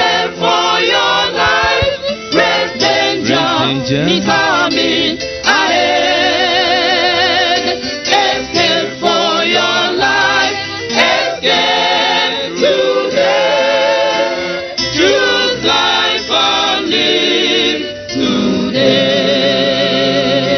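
Gospel song sung by a choir, long held notes with vibrato.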